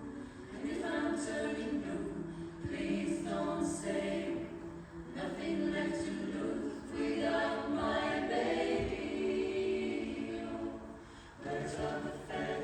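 Pop vocal ensemble singing a cappella, several voices in close harmony with sustained chords and phrase changes, dipping briefly about eleven seconds in.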